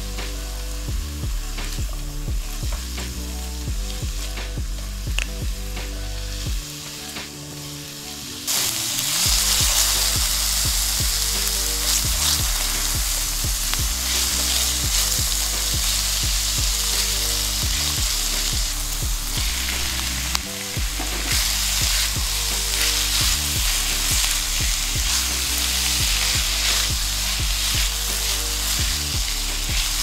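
Diced onion and scallions sizzling in oil in a nonstick frying pan while a silicone spatula stirs them. The sizzle turns much louder about eight seconds in and stays loud.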